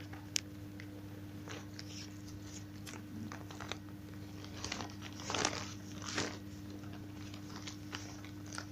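Scattered crinkling and rustling of material being handled, with a sharp click early on and the strongest rustles about five and six seconds in, over a steady low hum.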